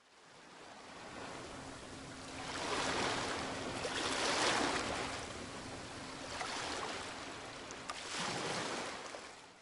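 Sea waves washing in and drawing back, swelling in several surges, fading in at the start and out near the end, with a faint steady low hum underneath.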